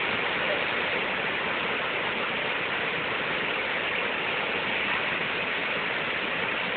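Waterfall cascading, a steady, even rush of falling water.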